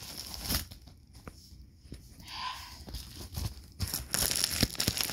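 White plastic shipping mailer crinkling and rustling as it is handled and pulled open, in scattered crackles that become dense and steady near the end.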